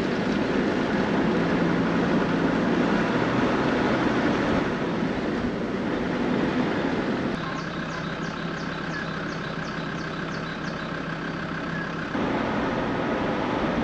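Steady rain and rushing water noise with a vehicle engine idling low underneath. The sound changes abruptly about seven seconds in and again near the end, and a faint rapid ticking runs through the middle part.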